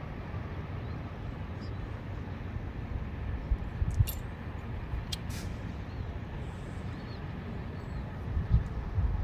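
Car jack being released, letting the car down onto a jack stand: a few sharp metallic clicks and knocks a few seconds in and a low thump near the end, over a steady low rumble.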